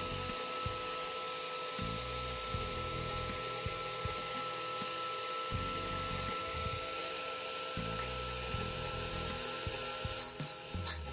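Electric drill, clamped in a vise with its trigger locked on, running steadily and spinning a grinding disc with a constant whine. About ten seconds in, the tip of a twist drill bit is pressed to the disc in a few short grinding bursts as it is sharpened.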